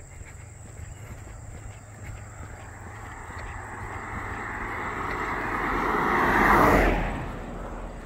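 An SUV driving past on an asphalt road: its tyre and engine noise swells over several seconds, is loudest as it passes about seven seconds in, then falls away quickly.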